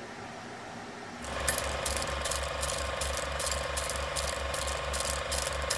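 Rhythmic mechanical clicking and clatter, about four to five strokes a second, setting in about a second in and running on steadily. Before it there is only a faint hum.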